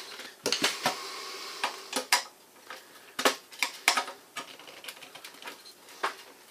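The sheet-metal body and parts of a 1936 General Electric model 600 toaster clattering as it is handled and taken apart with a screwdriver: irregular sharp metal clicks and knocks, several close together near the start.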